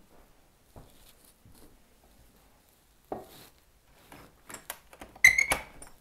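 Metal cooking pots being handled on a stove and counter: scattered light knocks, a thud about three seconds in, and a louder metallic clank with a brief ring a little after five seconds.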